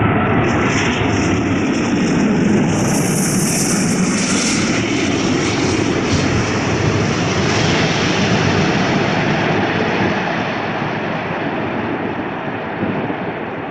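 Airbus A380's four Rolls-Royce Trent 900 jet engines as the airliner passes low overhead on final approach with its landing gear down. It is loud throughout, with a high hiss that peaks about three seconds in, and it slowly fades in the last few seconds as the plane draws away toward the runway.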